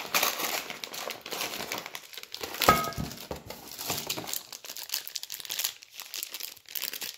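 Thin clear plastic bag holding a clutch throwout bearing crinkling as it is handled and opened by hand, with a sharper snap about two and a half seconds in.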